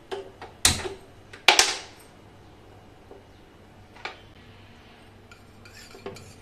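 Gas stove burner being lit: a sharp click of the knob and igniter, then a short rush of noise as the gas catches, about a second and a half in. Later, two light clinks of a steel spoon against a small steel bowl of melting ghee.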